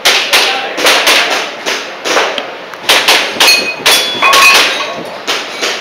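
Airsoft pistol firing a rapid string of shots, about two to three a second at an uneven pace, with brief metallic ringing in the middle of the string.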